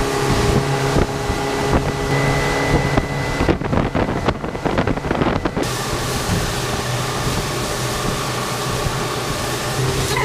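Motorboat engine running steadily under way, a constant low hum, with wind noise on the microphone; the hiss thins for a couple of seconds midway.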